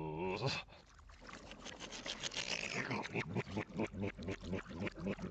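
Cartoon vocal noises played backwards: a short warbling voice, then a long run of rapid, gruff pulses.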